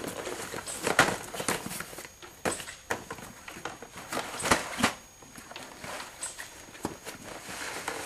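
Irregular knocks, clicks and rustling of things being handled and moved about by hand, about a dozen separate strikes with the loudest near one second and around four and a half seconds in.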